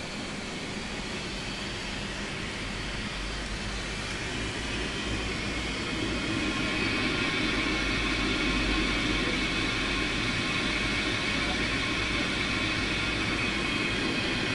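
Steady cabin noise of a Tupolev Tu-154 airliner in flight: the rumble and rush of its jet engines and the airflow. It grows louder from about four seconds in and then holds.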